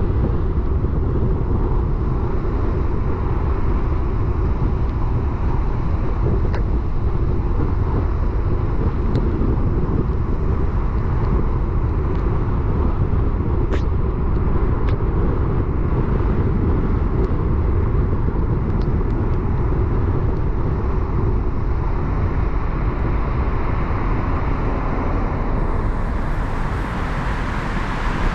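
Steady low rumble of a car driving: engine, tyre and road noise with no change in pace, broken by a few faint ticks.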